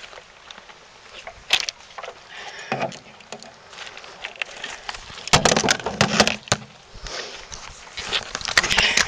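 Handling noise from a camera swinging on a neck strap, bumping and rubbing against a fleece jacket, mixed with footsteps on beach pebbles. Irregular knocks and rustles, with a loud cluster of knocks about five to six and a half seconds in and more near the end.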